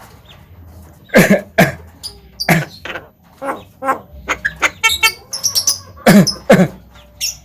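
Javan myna (jalak kebo) mimicking a person's coughs: short, sharp coughs, twice in quick pairs and once singly. Between them come quicker buzzy calls and high chirps.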